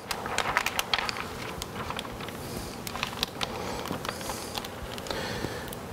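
Wet window-tint film being eased onto the glass by hand: many small, irregular crackles and ticks as the film flexes and the hands slide over it, with a soft rustle.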